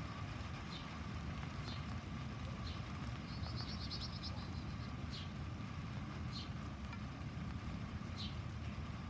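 Small birds at a backyard feeder chirping: short high chirps every second or so, with a buzzy trill a few seconds in. Underneath, a steady low rumble and a faint steady hum.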